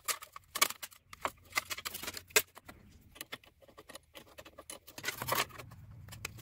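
Scattered clicks and taps of a metal-cased motor run capacitor and its mounting strap being handled and pressed into place by gloved hands, with its wires shifting. A low steady hum comes in about five seconds in.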